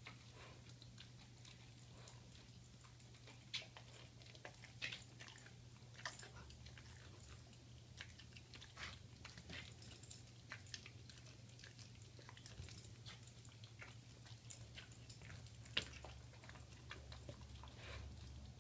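Bichon frisé chewing and tearing at a raw, skin-on pork picnic roast: faint, irregular clicks and snaps of teeth working meat and sinew, one sharper about sixteen seconds in, over a steady low hum.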